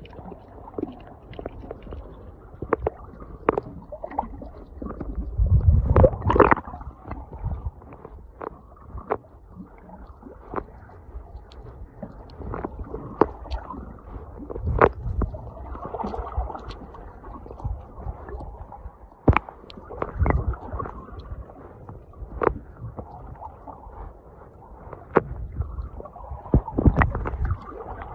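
Muffled underwater sound picked up by a submerged camera: low rumbling swells of moving water with scattered sharp clicks and ticks.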